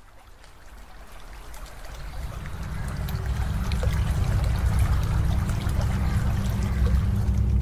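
Ambient sound of trickling, dripping water over a low drone, both fading in and growing steadily louder.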